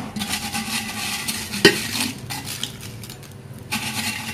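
Crisp kerupuk crackers crackling and rustling as a handful is piled into a bowl, with a sharper clink against the bowl about one and a half seconds in.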